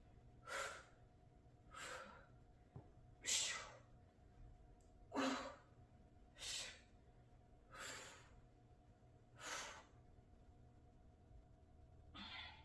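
A woman's short, rhythmic exhales of effort, seven in all, about one every second and a half, paced to each twist of a kettlebell Russian twist.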